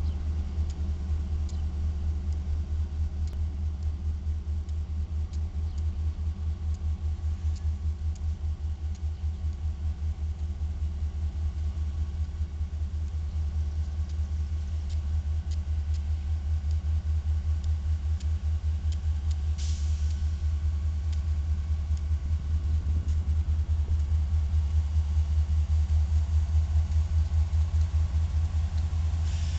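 Low, steady diesel engine rumble with a fast, even pulse, growing slightly louder in the last few seconds. There is one brief sharp click a little before the end.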